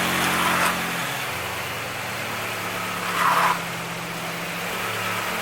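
Toyota GR86's FA24 flat-four engine idling steadily under a light hiss, with two short noisy swells, about half a second and about three seconds in.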